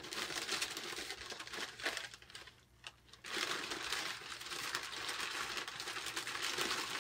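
Crinkling and rustling of packaging as a wrapped item is handled and opened, in two stretches with a pause of about a second between them.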